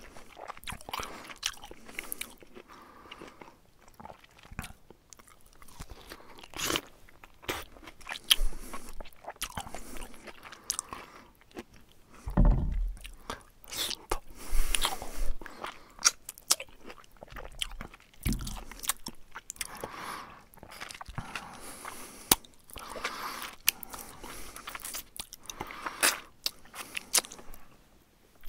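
A bear chewing and crunching food: irregular sharp crunches and bites throughout, with a couple of low thumps in between.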